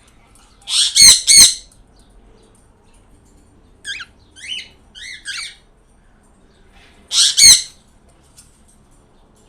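Pet birds squawking: two loud harsh squawks in quick succession about a second in, a run of four shorter, softer falling chirps in the middle, and another loud squawk pair near the end.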